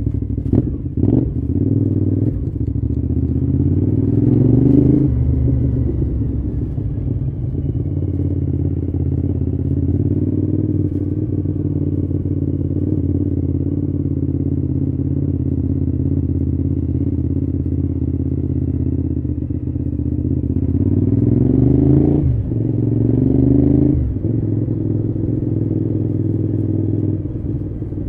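Cagiva V-Raptor 1000's V-twin engine under way. It revs up and drops sharply in pitch at a gear change about five seconds in, then runs at a steady cruise. A little after twenty seconds it pulls up again, with two more sharp drops in pitch at gear changes.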